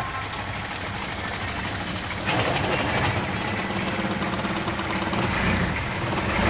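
Long-tail boat engine running steadily, getting louder about two seconds in.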